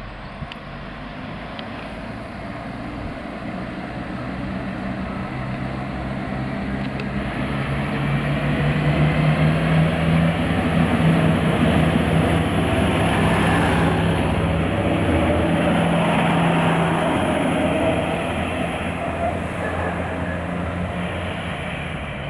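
Siemens Desiro Classic diesel multiple unit approaching and passing close by: the steady drone of its diesel engines and the rumble of its wheels swell to their loudest about halfway through, then fade as it moves away.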